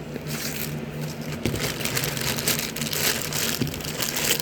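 Packaging rustling and crinkling as products are handled, with many small crackles throughout.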